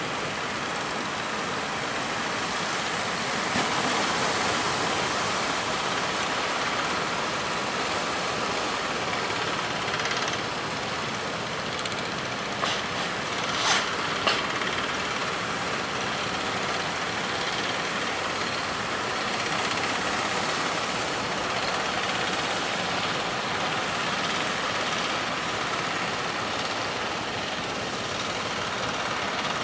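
Steady rushing noise of strong wind and breaking sea waves, with a few short louder gusts or crashes about halfway through.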